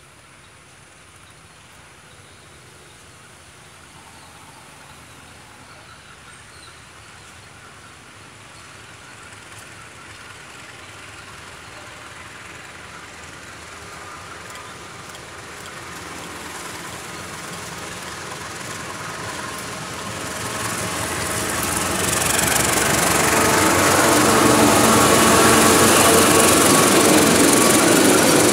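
CC201 diesel-electric locomotive hauling a freight train, approaching from a distance with its engine growing steadily louder over the whole stretch. It is loudest in the last quarter as it passes close by, and the tank wagons rolling over the rails follow it.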